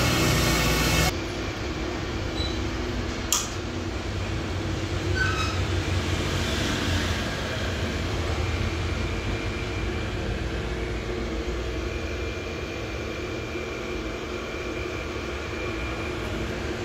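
Electric motor and gearbox of an iron basket-twisting machine running steadily with a low hum as it twists a bundle of square bars into a basket. A louder noise in the first second cuts off abruptly, and there is one sharp click a few seconds later.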